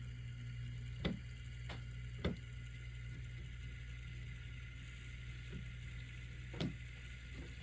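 HO-scale Proto 2000 GP9 model diesel locomotive running, a steady low motor and gear hum broken by a few sharp irregular clicks, the cracking that the owner takes as a sign the axle gears need replacing.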